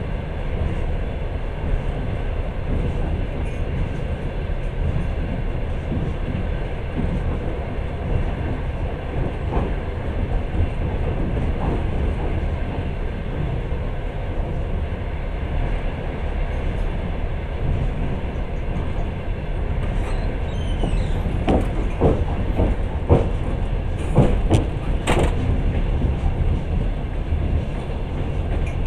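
Passenger train running on rails, heard from inside the carriage: a steady low rumble of wheels and car body, with a cluster of sharp clacks of the wheels over the rails about three quarters of the way through.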